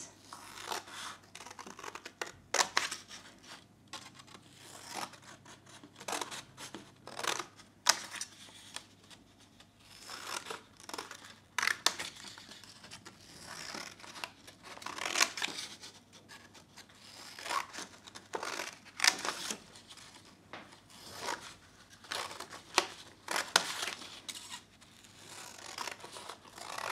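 Scissors snipping through a paper plate, a series of crisp cuts in short runs with brief pauses between them.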